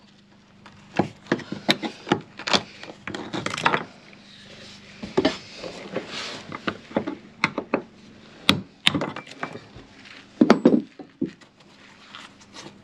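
Irregular sharp knocks and taps of a hand tool struck against a skin-fitting nut to work it loose, a few with a brief metallic ring.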